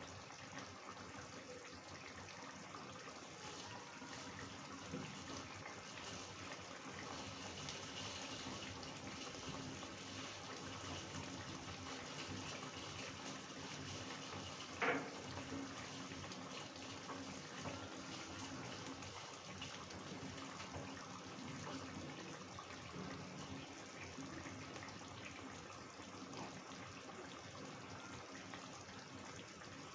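Chicken curry gravy simmering in a kadhai, a steady soft bubbling. One sharp click about halfway through.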